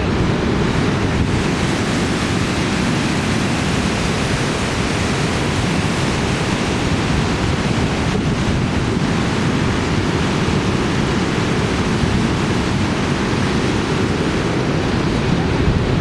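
Waterfall rushing, a loud steady noise, with wind buffeting the microphone.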